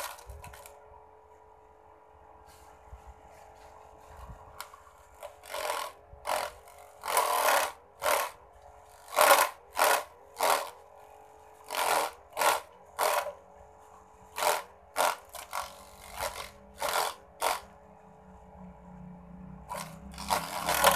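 Homemade mini grass chopper driven by a small salvaged toy-car motor, running with a steady whine. Grass fed into the hopper gives repeated loud rasping bursts as the blades shred it, in irregular runs after a few seconds of the motor alone.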